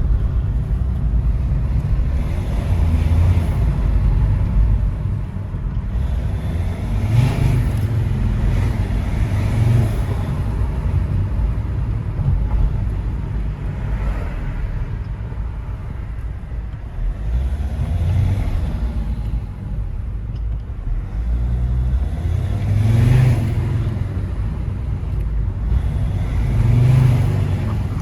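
Mercedes C270 CDI's 2.7-litre five-cylinder diesel, running with a K&N open air filter and its catalytic converter removed, revved up and let fall several times, with turbo whistle and intake hiss rising at each rev.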